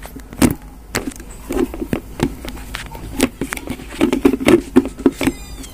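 Handling noise: scattered clicks and light knocks of objects being picked up and moved, thickest a little after the middle, with a short rapid rattle near the end.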